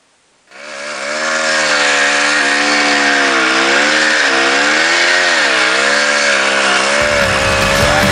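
Husqvarna 258 army motorcycle's two-stroke single-cylinder engine running, its revs rising and falling with the throttle; the sound comes in suddenly about half a second in. Rock music joins near the end.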